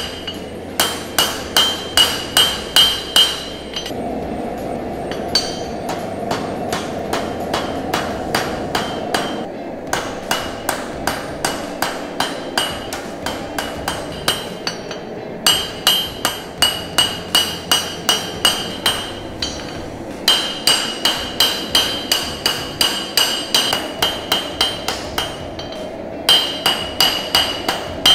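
Cross-peen hammer striking hot 1095 carbon steel on an anvil in quick, even blows, about three a second, each with a metallic ring. The blows come in runs of several seconds with short pauses between them. This is the handle being drawn out to form the knife's palm swell.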